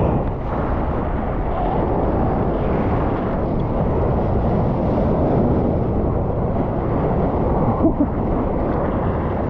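Steady rushing of ocean water and wind against a camera held at the water's surface, a low, even rumble without breaks.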